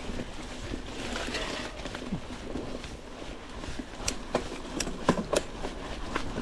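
Mountain bike rolling down a dirt trail, tyres crackling over leaf litter and the frame rattling. Several sharp knocks and clatters come between about four and five and a half seconds in as the bike jolts over bumps.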